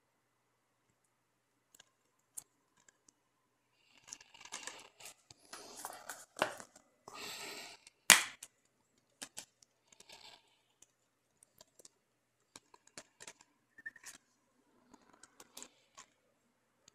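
Plastic Blu-ray/DVD cases being handled on a wooden table: a few seconds of rustling and sliding, then one sharp plastic snap about eight seconds in, followed by scattered small clicks and taps as the case is opened and the discs are handled.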